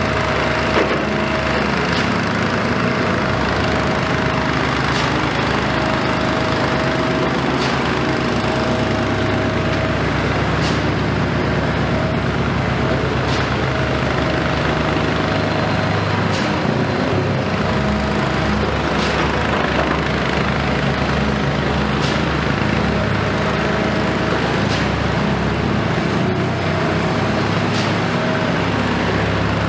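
Komatsu PC210 excavator's diesel engine running steadily under working load, with a higher whine that comes and goes and sharp clicks every couple of seconds.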